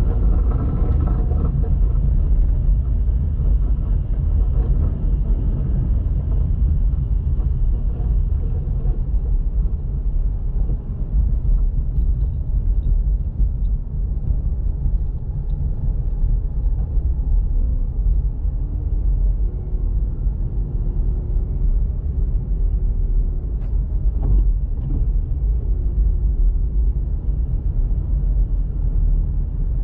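Steady low rumble of a car being driven: engine and road noise with no let-up, a faint wavering hum about two-thirds of the way in, and a couple of brief clicks soon after.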